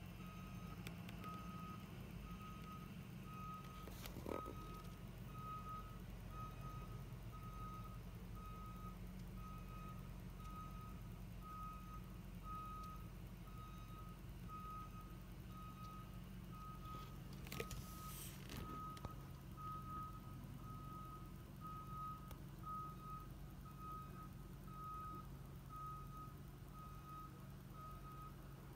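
A vehicle's back-up alarm beeping steadily, about one and a half beeps a second, over a low engine running. A short sharp knock comes about four seconds in, and a brief burst of noise a little past the middle.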